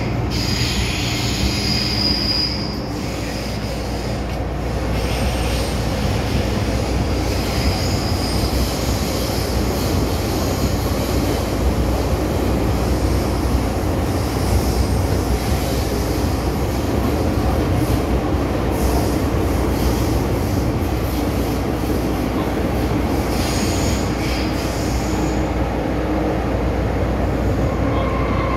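MTR Island Line M-Train running underground, heard from inside the car: a steady loud rumble of wheels on rail, with high-pitched wheel squeals about two seconds in, around five and eight seconds, and again near the end.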